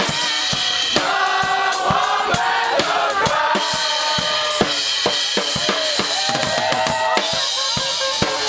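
Music with a driving drum kit beat (kick, snare and hi-hat) under sustained instrumental lines.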